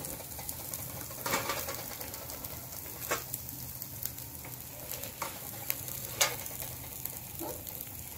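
Food sizzling steadily in a frying pan, with scattered clinks and taps of utensils against the pan and plates.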